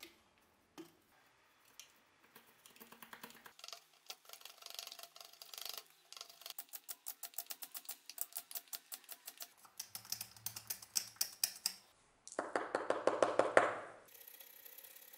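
A small chisel cutting into a wooden knife-handle piece by hand: a long run of short clicking cuts, about four a second. Near the end comes a louder, denser stretch of about two seconds.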